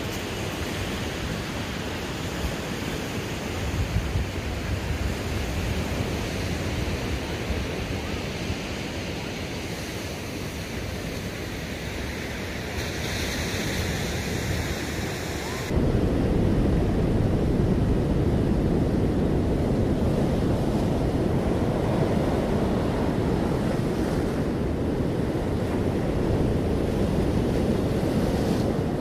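Pacific Ocean surf washing on a beach, with wind buffeting the microphone. About halfway through the sound abruptly gets louder, with much more low rumble.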